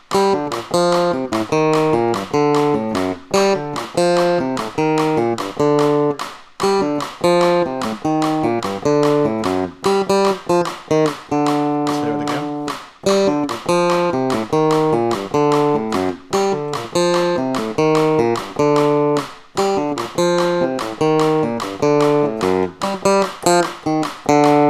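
Electronic keyboard playing a quick, syncopated melody over a steady metronome click.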